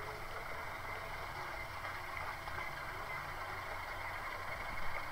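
Pickup truck engine running steadily while the truck sits bogged in deep mud.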